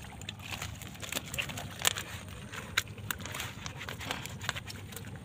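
Scattered light clicks and rustles of a fishing net being handled on gravel as fish are picked out of the mesh by hand.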